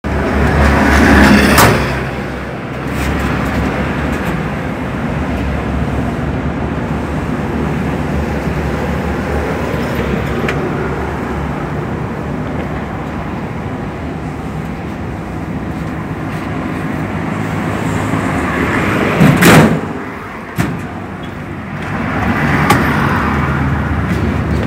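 Toyota 4K inline-four engine, fitted with a motorcycle carburetor, running steadily with the vehicle stopped, louder for the first couple of seconds. A single sharp knock about 19 seconds in, after which the sound briefly drops.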